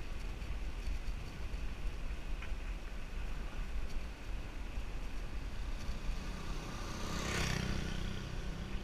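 Wind rumbling on a bicycle-mounted action camera's microphone while riding, with a motor scooter coming up and passing close about seven seconds in, its engine hum swelling and then fading.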